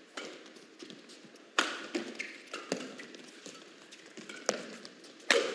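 Badminton rally: rackets striking a feather shuttlecock in a fast exchange, about six sharp hits at uneven intervals.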